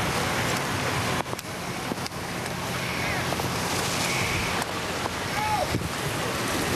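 Steady rushing roar of a large burning fuel fire and foam hose streams, with a low hum underneath that stops about two-thirds of the way through.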